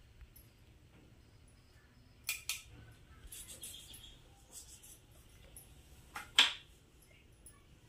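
Light clinks and taps of a spoon and knife against a clay bowl while a lemon is cut: two quick clinks about two seconds in, soft scraping for a second or so after, and two sharper knocks a little after six seconds, the loudest.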